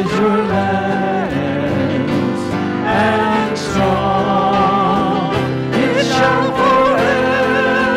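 Several voices singing a worship song together in harmony, holding long notes with vibrato, accompanied by piano and acoustic guitar.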